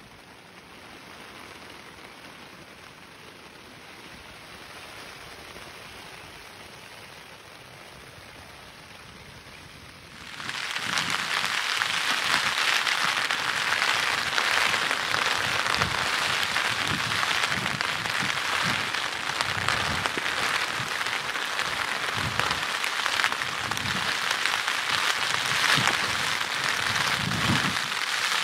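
A faint steady hiss, then about ten seconds in an abrupt change to steady, loud rain with gusts of wind rumbling on the microphone.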